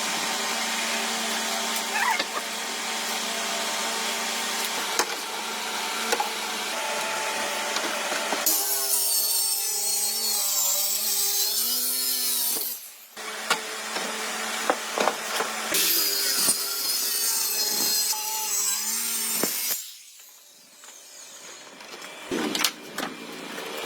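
Woodworking power tools cutting wood: a motor runs steadily, then its pitch wavers and dips under load as the blade bites into the wood. The noise drops out briefly about halfway through and again near the end, where a few sharp knocks follow.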